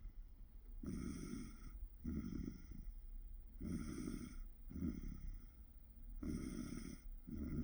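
A sleeper snoring in a car: three snore cycles about every two and a half seconds, each a longer rasping snore followed by a shorter, softer one.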